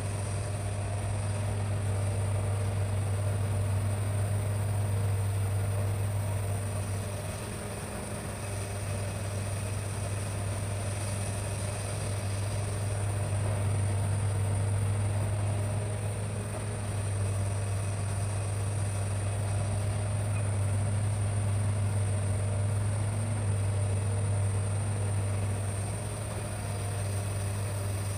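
Hitachi excavator's diesel engine running steadily as a deep, even hum, its loudness dipping briefly a few times as the load changes.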